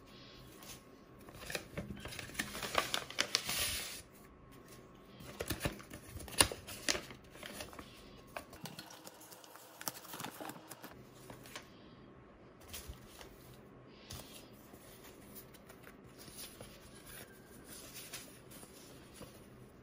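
Paper and card rustling as sticker sheets and memo pads are handled in a cardboard box, loudest for a couple of seconds near the start, with a few sharp taps about six seconds in and quieter rustling after.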